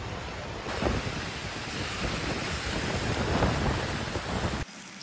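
Steady rush of water on a flooded city street, rain and car tyres ploughing through floodwater, with a low rumble underneath. The sound changes abruptly just under a second in and cuts off suddenly near the end.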